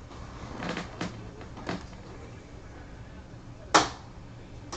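Handling noises: three short scuffs or taps in the first two seconds, then one sharp, loud knock near the end.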